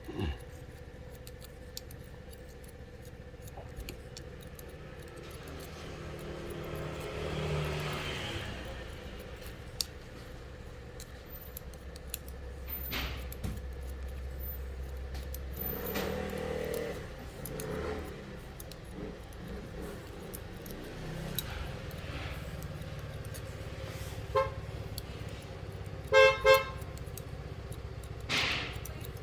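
Street traffic running in the background, with a car horn: one short toot, then two loud toots a couple of seconds later near the end.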